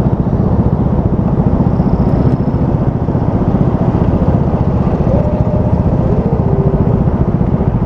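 Motorcycle engine running steadily under way, heard through a microphone wired inside the rider's helmet, with a fast even engine pulse and some wind rush.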